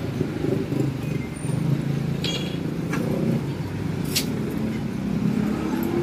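Street traffic: the steady running of passing motorcycles, motorcycle tricycles and cars. Two short sharp high sounds come about two and four seconds in.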